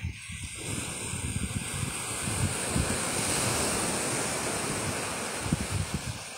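Sea surf washing up the beach and drawing back, a steady rushing hiss that swells to a peak midway and eases off toward the end, with wind buffeting the microphone.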